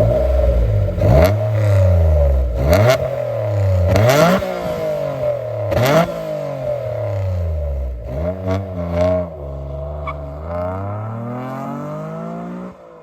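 Mitsubishi FTO GPvR's 2.0-litre 6A12 MIVEC V6 revved hard through a loud exhaust: four quick jumps in revs that fall away slowly, a couple of short blips, then a slower, steady climb in revs near the end.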